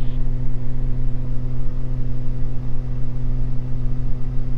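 Steady drone of the Beechcraft G58 Baron's twin piston engines and propellers heard inside the cockpit: a constant low hum with several steady tones above it, not changing in pitch.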